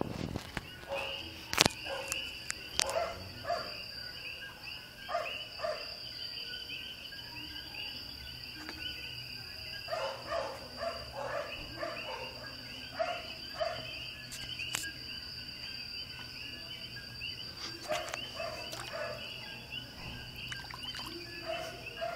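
Night chorus of insects: a steady high trill under a layer of fast chirping, joined now and then by bursts of lower calls. Two sharp knocks in the first three seconds.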